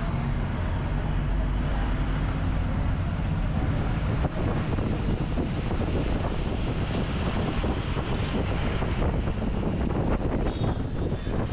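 Steady engine and road noise of a moving bus, heard from inside the bus.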